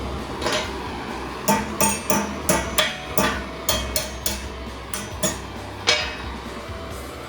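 A hammer strikes thin steel about a dozen times at an uneven pace of roughly two blows a second, each blow ringing briefly. The blows come mostly between about a second and a half and six seconds in.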